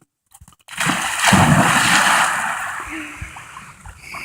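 A dog leaping into water with a big splash about a second in, followed by splashing and sloshing that fades away over the next few seconds.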